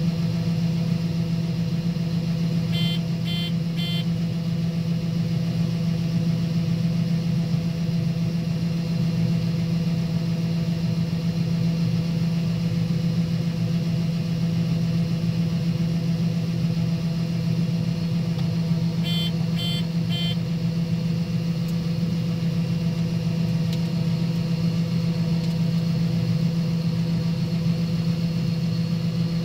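Diesel engine of a harvest machine running steadily under load, heard from inside the cab as a constant low drone. Two sets of three short, high electronic beeps sound from the cab, about three seconds in and again about nineteen seconds in.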